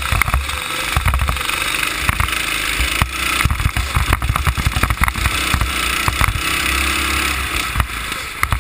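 Go-kart engine running under throttle through corners, heard from an onboard camera, with heavy wind buffeting and rattling on the microphone.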